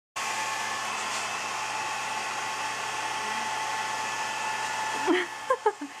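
Small hand-held hair dryer running, a steady rushing blow with a faint motor whine, until its noise drops about five seconds in. A few short, high voice sounds follow near the end.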